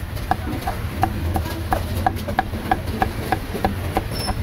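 Meat cleaver chopping roast pork belly on a thick wooden chopping block: a steady run of sharp knocks, about three a second, over a constant low rumble.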